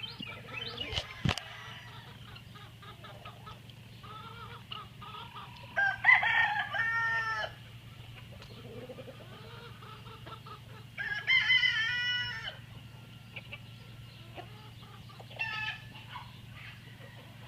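Rooster crowing: two long crows about six and eleven seconds in, and a shorter call near the end, with chickens clucking softly in between. A steady low hum runs underneath.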